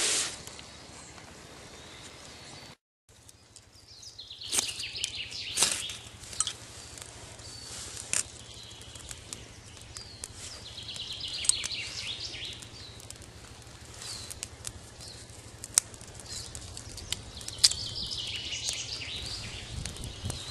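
Dry leaves and twigs rustling as they are handled, in three spells, with a few sharp snaps or clicks between them.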